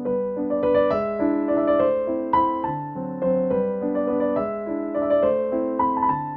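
Background piano music: a gentle melody of struck notes over chords.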